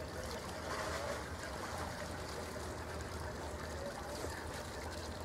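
Sea Ray cabin cruiser's inboard engine idling as the boat maneuvers slowly into its slip: a steady low hum.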